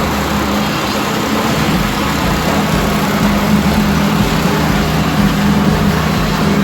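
Engine of site machinery running steadily with a constant low hum and no changes in speed.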